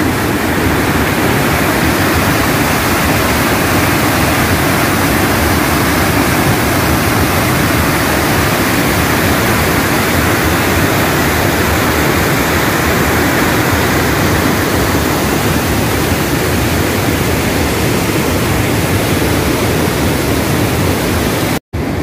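River water rushing over the rock ledges of a wide waterfall, a loud, steady roar. It cuts out for an instant near the end.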